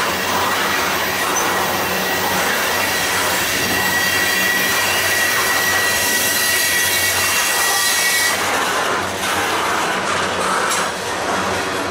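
Loaded covered hopper cars of a freight train rolling past with steady wheel and rail noise. A thin, high, steady wheel squeal rings over it and stops about eight seconds in.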